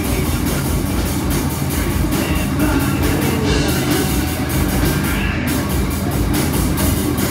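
A rock band playing live: electric guitar, bass guitar and a drum kit, loud and dense, with drum hits throughout.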